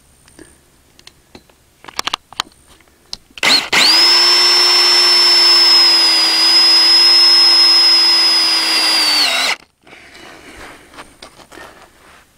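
Cordless drill driving a self-tapping screw into galvanized steel greenhouse tubing: the motor runs with a steady whine for about six seconds, then stops suddenly. Light clicks and taps of handling come before it.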